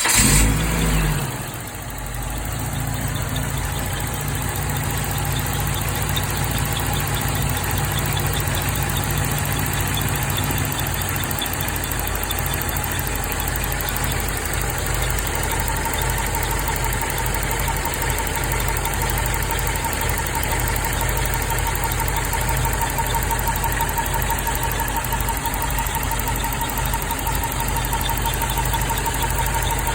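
Toyota AE86's four-cylinder engine catching and then idling steadily in a high-mileage car (over 330,000 km) whose engine bay makes two abnormal noises at once, cause not yet found. About halfway through, a thin steady whine joins the idle.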